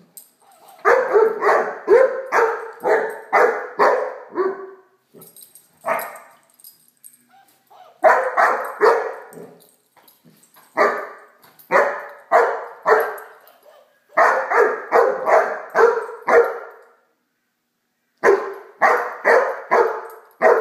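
Electronic toy dog barking: runs of even, identical yaps at about two a second, broken by short pauses, with faint clicking from the toy.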